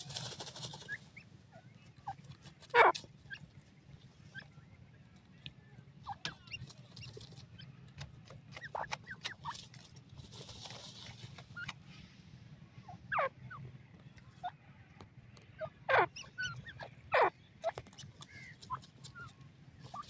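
Grey francolin hen and chick dust-bathing in dry soil: rustling and fluttering in the dust, with several short, sharp calls that drop steeply in pitch. The loudest call comes about three seconds in, and three more come in the second half.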